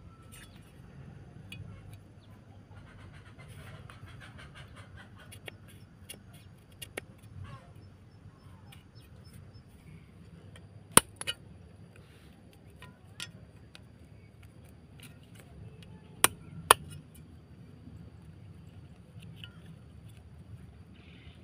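Scattered sharp knocks and ticks of a knife blade cutting and trimming bamboo strips against a wooden block. The loudest come as two quick pairs, about halfway through and again a few seconds later.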